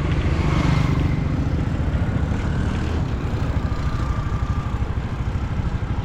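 Motor vehicle engine running steadily while travelling along a road, a fast low throb under road and wind noise.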